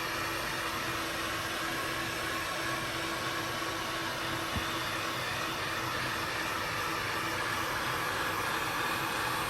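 Heat gun blowing steadily on its low number-2 setting, warming the edges of a phone to soften the screen adhesive. One faint tick about halfway through.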